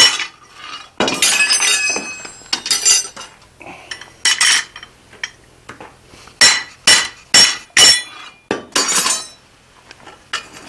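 Hand hammer striking a red-hot steel bar on an anvil: about a dozen irregularly spaced blows, each with a bright metallic ring.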